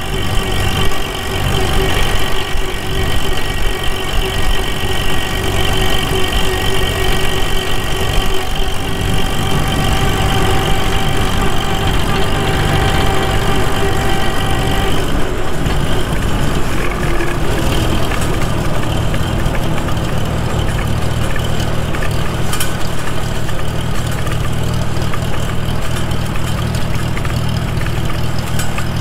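1942 Farmall H tractor's four-cylinder engine running steadily, with a steady high gear whine from the freshly rebuilt rear end, whose reset gear sets have not yet worn in. About halfway through the whine drops away and the engine's low rumble comes forward.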